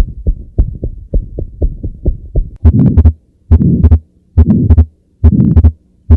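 Abnormal heart sounds heard through a stethoscope, given as examples of atrial fibrillation, aortic stenosis or a holosystolic murmur. For about two and a half seconds there is a fast, uneven run of low heartbeats. Then come loud murmurs, each about half a second long, roughly once a second, with near silence between them.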